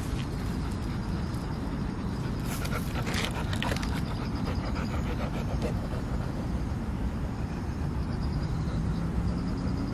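Outdoor night ambience: a steady low rumble runs throughout, with faint, evenly pulsed high chirping of insects that comes and goes. Brief rustling sounds come about three seconds in.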